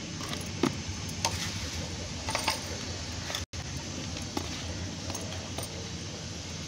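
Glass bangles clinking lightly in short, irregular clicks as hands scoop loose soil and press it into a plastic pot around a plumeria cutting, with soft scraping of the soil.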